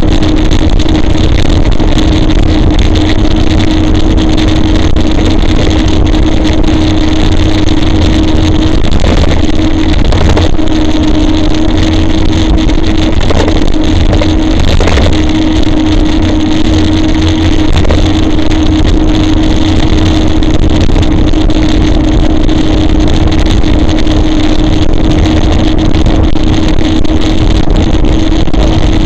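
Loud, steady riding noise from a camera mounted on a moving e-bike: rumble of wind and road on the microphone with a constant hum running through it.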